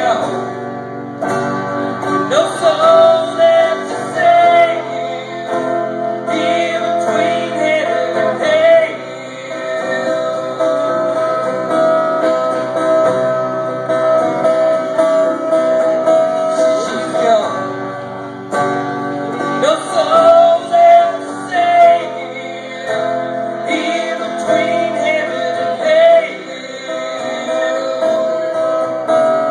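Live band music: an electric guitar and a strummed acoustic guitar playing together, with bending lead notes from the electric guitar.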